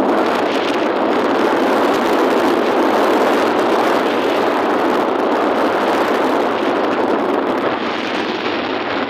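Steady rush of wind buffeting a phone's microphone while riding along a road on a motorbike, easing slightly near the end.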